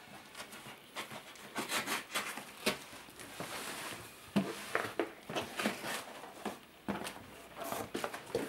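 Corrugated cardboard box flaps being pulled open and handled: irregular rubbing and scraping of cardboard with scattered light knocks and clicks.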